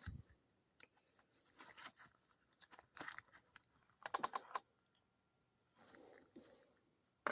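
Soft handling sounds: a few short clusters of faint clicks and crinkles, spaced about a second apart.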